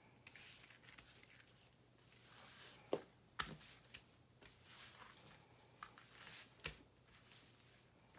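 Bread dough being kneaded by hand on a floured silicone mat: faint soft swishes and presses, with three sharp knocks between about three and seven seconds in.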